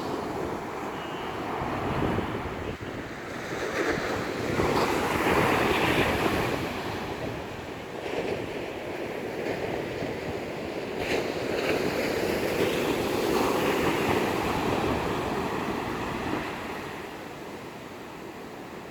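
Rough sea surf breaking and washing on the shore, swelling louder in surges, with strong wind buffeting the microphone.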